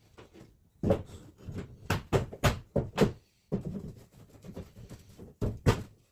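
An irregular run of short knocks and taps, with small gaps between them and a quieter stretch near the end.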